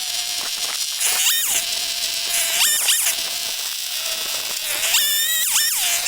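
Titan TTL759CHN two-stroke petrol chainsaw idling, then revved to full throttle three times in short bursts, each lasting under a second. Each time the engine climbs quickly to a high scream and drops back to a steady idle.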